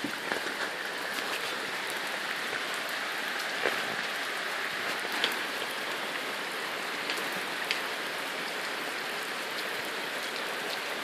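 Steady rain falling, an even hiss with a few sharper ticks of individual drops here and there.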